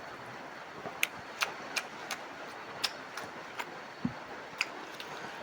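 Eating sounds at close range: a run of short, sharp clicks and small crunches, about two a second, with one low knock about four seconds in, over a steady background hiss.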